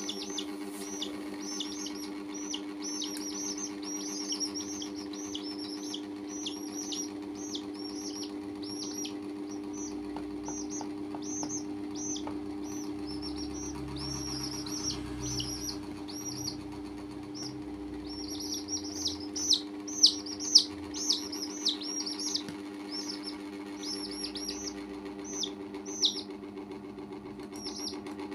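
Domestic chicks peeping continuously: short, high, falling peeps, about three a second, over a steady low hum. A few sharp knocks stand out about two-thirds through.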